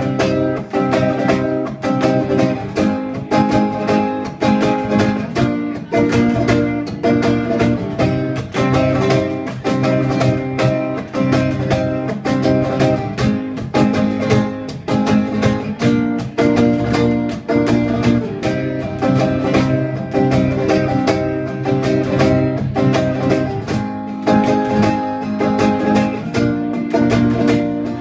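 Acoustic guitar strummed in a steady rhythm through a run of chord changes, with a Meinl cajón played along as the percussion; an instrumental passage with no singing.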